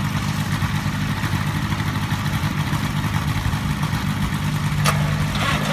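Newly built zero-time Lycoming O-320, a four-cylinder air-cooled aircraft engine, idling steadily and smoothly on its first run, turning the propeller of a 1956 Piper Tri-Pacer. A single sharp click about five seconds in.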